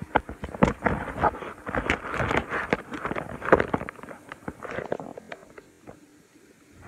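Handling noise: irregular rustling, knocks and clicks of things being moved close to the microphone for about five seconds, then quieter.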